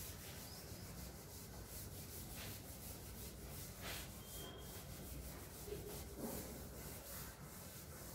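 Blackboard duster wiping chalk off a chalkboard: repeated faint, irregular rubbing strokes.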